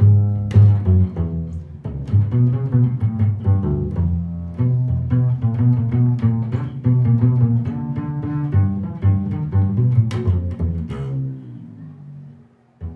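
Small jazz combo improvising, led by an upright double bass played pizzicato in a run of low plucked notes, with a few cymbal crashes. The playing dies away near the end, then one short hit.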